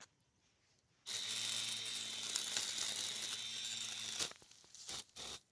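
Homemade lawn mower running and cutting grass: a steady motor whine with a rough, noisy cutting sound. It starts abruptly about a second in and stops about three seconds later, then runs briefly twice more near the end.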